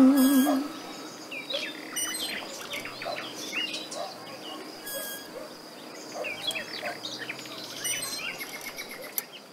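Birds chirping and singing, many short calls overlapping over a faint steady high tone. The last of the background music dies away in the first second.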